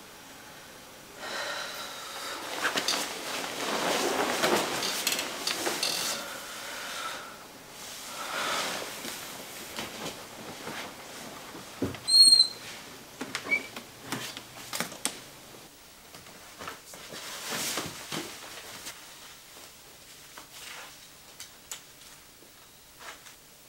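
Bedclothes rustling as someone moves in bed, then a door opened with one short high squeak about twelve seconds in, followed by scattered light knocks and handling noises of someone moving about the room.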